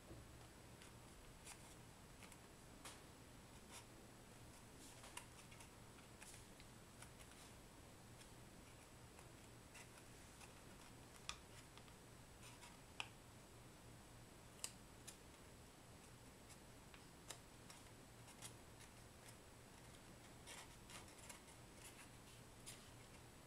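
Faint, irregular crinkles and clicks of folded paper being pinched and creased by hand as a pleated origami pumpkin is shaped, with a few sharper clicks around the middle. A low steady hum runs underneath.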